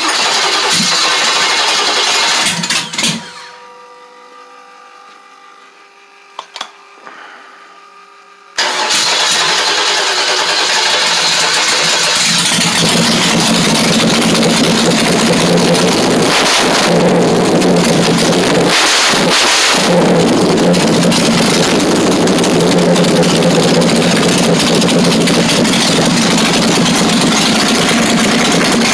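Carbureted 355 small-block Chevy V8 with open headers on an engine stand being started. A first loud burst of about three seconds stops, leaving a faint steady whine. About eight seconds in the engine catches and keeps running loud, settling into a steady idle with two short blips of the throttle.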